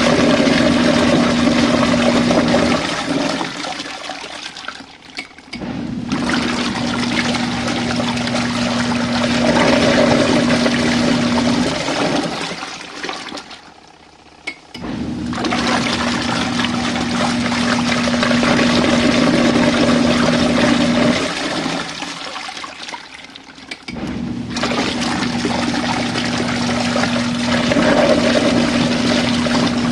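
RV washing machine agitating water during a rinse: its motor hums steadily while the water churns, in runs of about six seconds broken by pauses of two to three seconds, four times.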